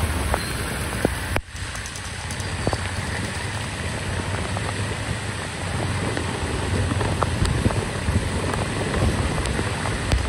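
Heavy monsoon rain pouring steadily over a flooded street, with auto-rickshaws driving and splashing through the floodwater and wind rumbling on the microphone.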